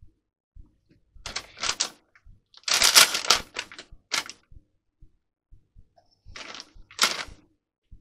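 Plastic baby-wipes packet and wipes crinkling and rustling as wipes are pulled out to clean glue off a hot covering iron, in three spells, the loudest about three seconds in. Faint low knocks about twice a second run underneath.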